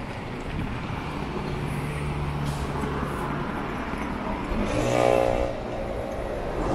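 Road traffic running steadily, with a louder pitched sound about five seconds in.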